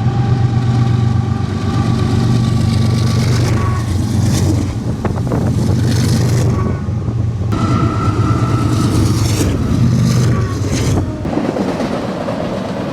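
A train passing close by: a diesel locomotive's engine drone with rolling rail noise, plus a couple of steady high-pitched whines on top. The drone drops away near the end.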